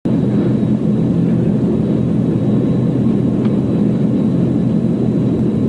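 Military transport aircraft's engines droning steadily, a loud, deep, even drone.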